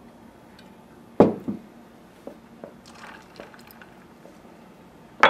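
Bar glassware handled for a cocktail: a sharp knock about a second in as a glass or bottle is set down hard, a few small clinks, then a thick syrup poured from a jigger into a stainless cocktail shaker tin, and another knock right at the end.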